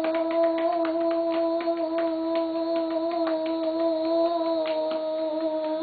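A child holding a long sung 'oo' vowel on one steady pitch while tapping her chest, a few quick uneven taps a second breaking into the voice: the 'Tarzan' exercise, done to loosen a cough.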